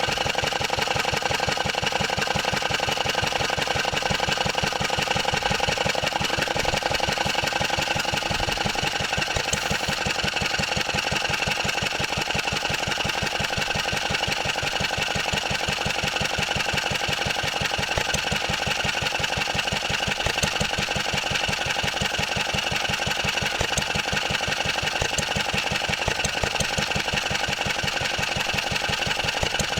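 1954 Wolseley WD8 single-cylinder stationary engine running steadily off load, with its belt thrown off. A clatter runs with it from the trolley rattling, because the engine is held down by only two bolts.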